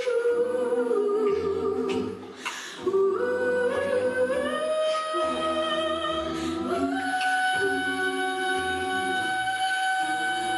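Mixed a cappella group of five voices, a woman and four men, singing in close harmony into microphones with no instruments, over a low pulsing vocal bass line. The singing dips briefly about two seconds in, then resumes on long held chords.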